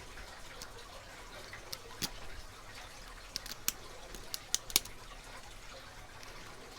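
Lock pick and tension wrench working the pin stack of a Master Lock Magnum M930 padlock, giving faint irregular metallic clicks as pins are lifted and set. There is a single click about two seconds in, then a quicker cluster of clicks, the loudest near five seconds in.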